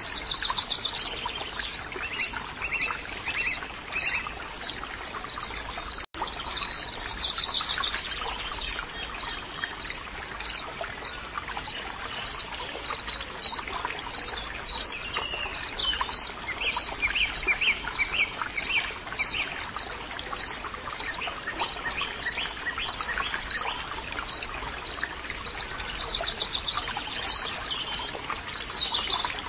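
Flowing stream water running steadily, with birds singing. A high pip repeats evenly about once every three-quarters of a second, and bursts of quick trills come in a few seconds in, again midway, and near the end.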